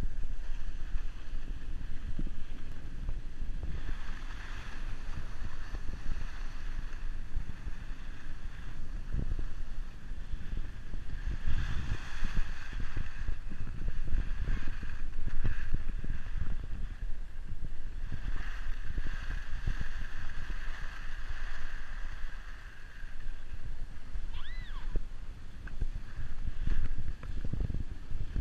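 Wind buffeting a skier-carried action camera's microphone, with the hiss and scrape of skis sliding on groomed snow that swells and fades as the skier turns.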